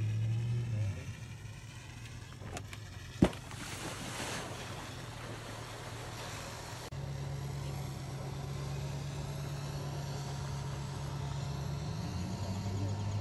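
A motor running steadily with a low hum, a single sharp knock about three seconds in, and a hissing rush for a few seconds after it.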